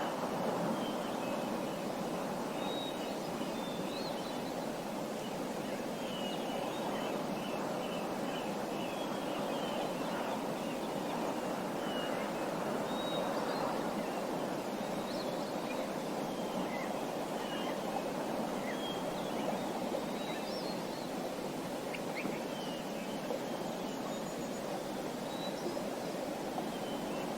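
Nature ambience of small birds chirping, short high calls scattered throughout, over a steady rushing noise.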